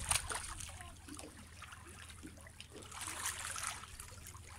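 Sea water lapping and trickling among shore rocks, with a brief swell of wash about three seconds in.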